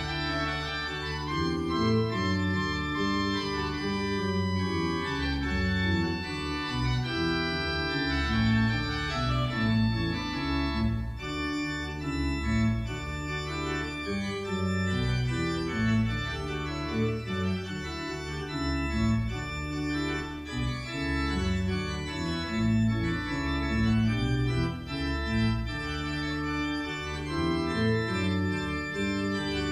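Church pipe organ played solo. A continuous piece of changing chords and melody runs over low bass notes, with no breaks.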